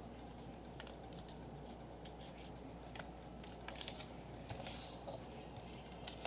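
Faint, scattered rustles and light taps of a sheet of paper being handled and creased in folding, coming more often in the second half.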